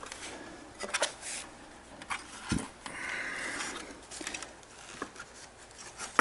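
Handling noise from assembling a piano stand: scattered clicks and knocks as the plastic pedal unit and small hardware are picked up and turned over, with one dull thump about two and a half seconds in.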